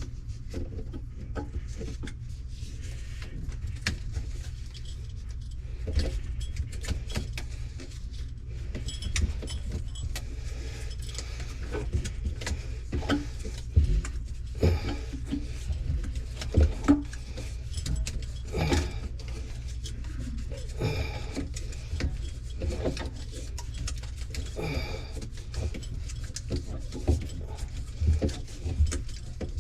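Scattered small clicks, taps and knocks of plumbing fittings and tools being handled under a kitchen sink while a pipe joint is wrapped with Teflon tape, over a steady low hum.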